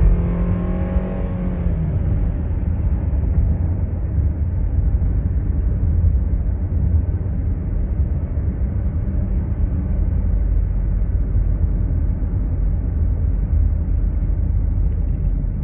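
Steady low rumble of road and engine noise inside the cabin of a 2019 Subaru Outback cruising at about 45 mph.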